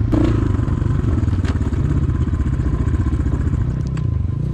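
Enduro motorcycle engine running steadily as the bike is ridden, its note easing off and picking up slightly, with a few light clicks. The new bike is being ridden gently while it is run in.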